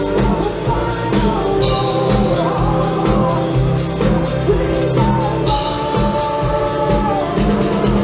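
A rock band playing live: a male lead singer holds long sung notes over electric guitar and drums.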